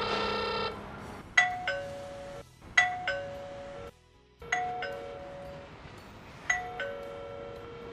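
Wireless doorbell chime unit ringing a two-note ding-dong four times, each a higher note dropping to a lower one and ringing out, after a held electronic tone at the start. The chime has just been paired to the Wi-Fi video doorbell.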